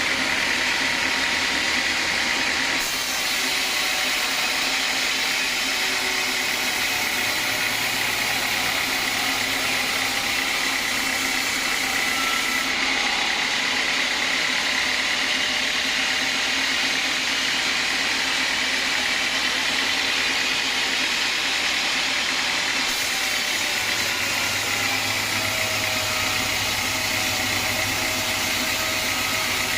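Sawmill band saw running with a steady, even machine noise as it cuts teak.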